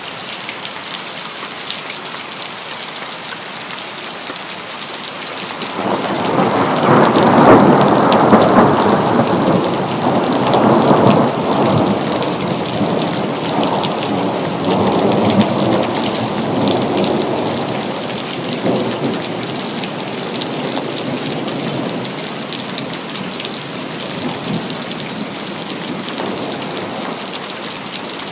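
Steady rain with a long peal of thunder that begins about six seconds in, is loudest soon after, and fades back into the rain over about ten seconds.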